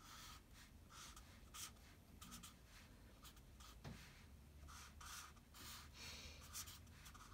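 Black marker writing on paper: a string of faint, short scratching strokes with brief pauses between them.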